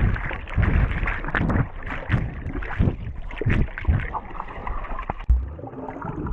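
Swimming-pool water heard from underwater: a muffled rush and gurgle of bubbles and water churned by a swimmer, with irregular low thumps and surges.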